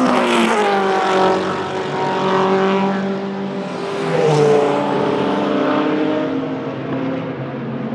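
Mugen 4.0-litre V8 of a Panoz LMP07 prototype race car at speed, its pitch dropping as it passes. It holds steady through a corner, with a brief rise and fall in revs about four seconds in, and fades as the car pulls away.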